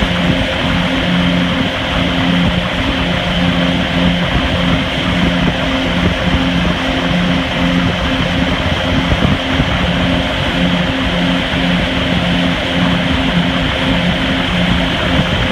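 Towboat's engine running steadily at speed, its low hum swelling and fading slightly, over the rush of the wake and wind.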